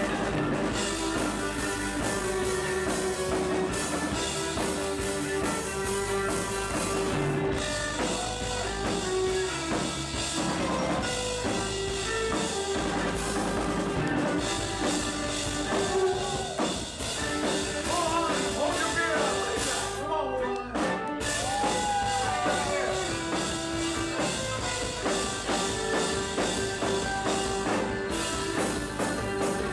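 Rock band music with a drum kit, held instrument notes and singing voices.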